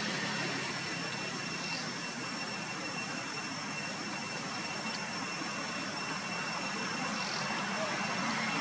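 Steady distant engine noise, a broad even rumble and hiss, with two faint steady high-pitched tones above it.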